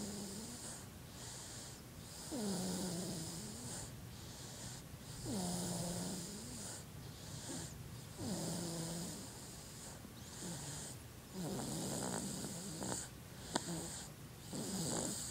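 A 7½-month-old baby snoring in his sleep: about five rhythmic snores, some three seconds apart. Each is a tone that slides down and then holds low. A single sharp click comes near the end.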